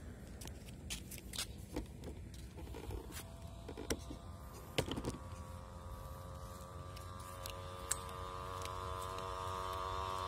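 A motor vehicle's engine drawing nearer, its steady hum growing louder through the second half. Before it come a few sharp clicks and knocks, the loudest about five seconds in.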